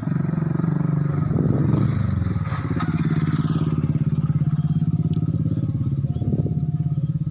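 Small motorcycle engine running close by with a steady, even pulsing hum; a motorcycle passes, its sound falling in pitch about three seconds in.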